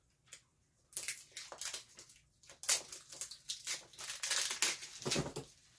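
A small cardboard blind box being torn and pried open by hand: a run of irregular crackling, tearing and crunching of card.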